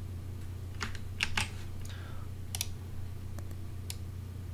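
Scattered sharp clicks of a computer mouse and keyboard as text is selected on screen, about half a dozen, the loudest two in quick succession just over a second in, over a steady low hum.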